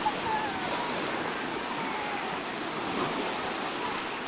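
Sea surf washing steadily in the shallows.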